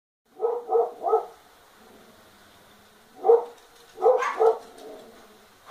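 A dog barking at a turtle it has found: three quick barks, a pause of about two seconds, then three more.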